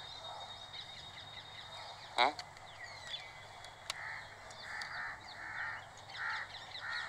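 Faint outdoor birdsong ambience: many short chirps throughout, one brief louder sound about two seconds in, and from about four seconds in a run of five short harsh calls repeated at even spacing.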